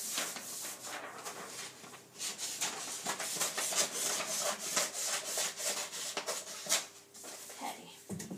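Sheets of paper rustling and crackling as they are handled and shuffled, a continuous rubbing rustle with many small sharp crinkles.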